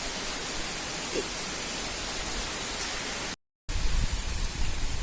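Heavy rain falling, a steady even hiss. A brief dropout about three and a half seconds in, after which the rain is louder, with a low rumble of wind on the microphone.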